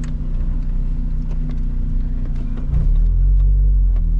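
Engine of a manual-transmission car heard from inside the cabin, running steadily. About three seconds in, the low rumble grows louder and the engine note changes as the car pulls harder.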